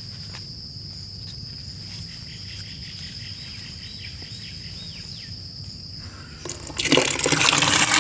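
Insects calling with a steady high whine, with a few faint bird calls. About seven seconds in, a loud rush of water starts: a stream from a tap pouring into a plastic bucket of freshly picked mushrooms to wash them.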